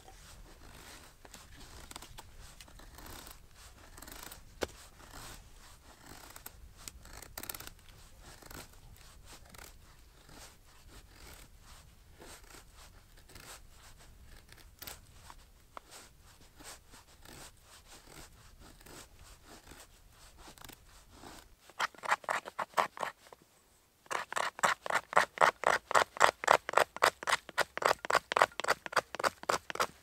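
A knife blade shaving thin curls from split wood, repeated faint scraping strokes. About 22 seconds in, the strokes turn much louder and faster, a steady rhythm of about four a second.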